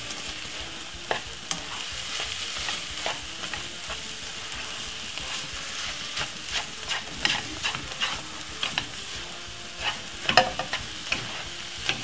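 Egg, sardine and chopped vegetables sizzling steadily in a non-stick frying pan over medium heat. A plastic slotted spatula stirs and scrapes the pan with frequent light clicks, busiest in the second half.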